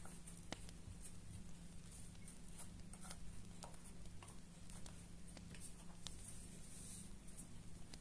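Soft rustling and small clicks of hands handling skeins of embroidery floss and their box, over a steady low background hum.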